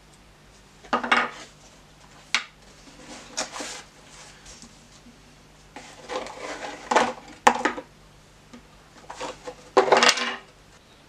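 Small items being unpacked from a cardboard box and set down on a wooden tabletop: several short bursts of cardboard and packaging handling, with a few sharp knocks and metallic clinks, among them a small metal tin.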